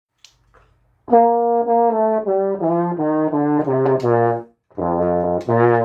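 A brass instrument with a low trombone-like tone plays a short melody: a run of short, separate notes stepping mostly downward, then after a brief pause two longer notes begin a second phrase.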